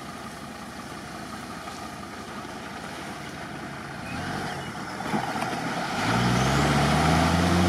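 An off-road 4x4's engine running low, then revved hard about six seconds in, its pitch climbing slowly as the stuck vehicle tries to pull out of the mud.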